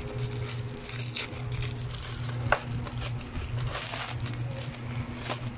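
A clear plastic bag crinkling and rustling as it is handled and worked off a bench multimeter, with scattered small crackles and one sharper click about midway.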